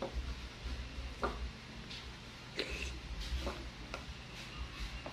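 Eating sounds: a wooden spoon clicking and scraping against a plastic rice bowl, with chewing and mouth noises. There are about five scattered clicks over a faint low hum.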